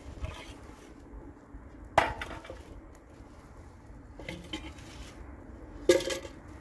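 Metal cookware clanking as it is handled and set down: a sharp clank about two seconds in, a softer knock, and another ringing clank near the end.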